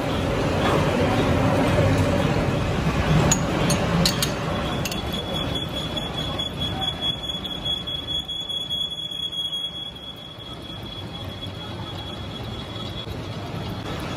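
Metalworking noise: a steady machine-shop din with a few sharp clicks about three to four seconds in. From about five seconds in, a thin high-pitched squeal holds steady until near the end.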